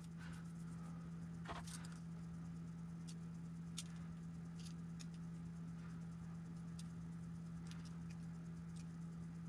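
Faint, scattered small clicks and taps from handling an RC truck shock absorber while its spring preload is adjusted, over a steady low hum.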